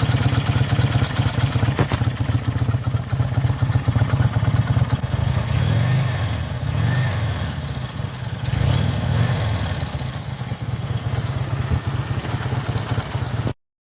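Kawasaki VN800's 805 cc V-twin engine running, its revs rising and falling a few times in the middle, with no knocking noise.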